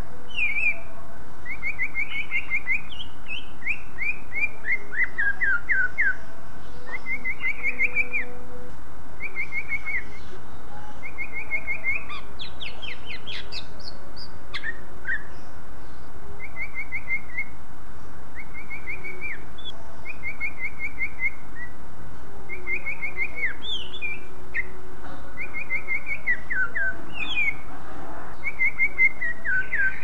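Male greater green leafbird (cucak ijo) singing: repeated short phrases of quick, falling chirps, with short pauses between the phrases.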